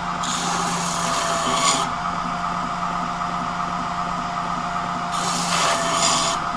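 Wilmont belt grinder running with a steady motor hum, while a steel knife blade is pressed against the moving belt twice to grind out scratches on the bevel. Each pass is a hissing grind, the first lasting about a second and a half and the second about a second near the end.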